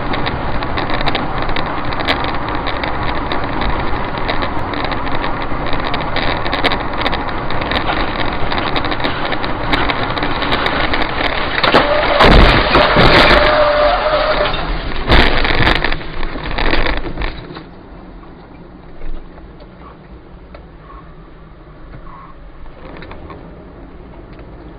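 Dashcam recording inside a moving car: loud rushing noise, broken about halfway through by a burst of heavy crashing impacts and a brief whine as wreckage of a crashing Tu-204 airliner hurtles across the highway. After the crashes the sound drops to much quieter tyre and road noise on the wet road.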